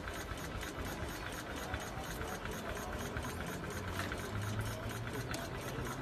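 A small engine running steadily, a rapid, even mechanical ticking over a low hum.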